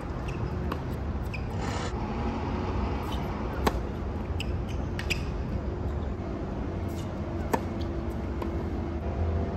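Tennis ball being hit back and forth with rackets during a rally on a hard court: a string of short, sharp pops. The two loudest come about four seconds apart, with fainter hits and bounces between them, all over a steady low outdoor rumble.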